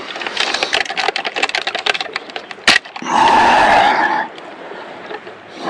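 Metal fish lip gripper and hanging scale hook rattling as a sockeye is hung up to be weighed: a dense run of quick clicks for a couple of seconds and one sharp click. A louder sustained sound follows for about a second.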